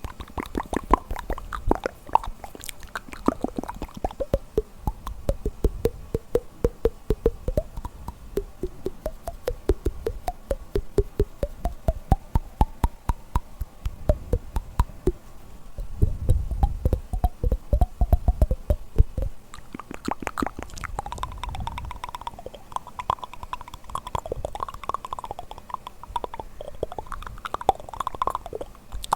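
ASMR mouth sounds close to the microphone: a fast stream of wet tongue clicks and lip pops whose pitch slides up and down, with a lower, heavier stretch a little past the middle.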